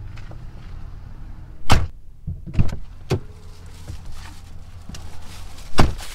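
The driver's door of a 2004 Mercury Grand Marquis slams shut, followed by a few lighter knocks, and slams shut again near the end. A steady low rumble sits under the first slam and returns near the end.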